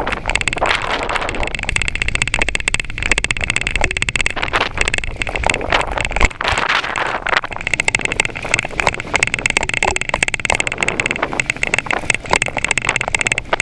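Bicycle rolling over a paved path, its frame and front wire basket rattling in a dense, continuous clatter. A low wind rumble on the microphone drops away about six seconds in.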